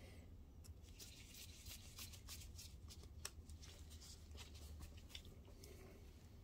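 Faint light clicks and rubbing from a small screwdriver turning a screw in the lens barrel of a projector optic assembly while gloved hands handle the plastic and metal parts. The clicks come in a quick irregular run from about a second in, then thin out near the end.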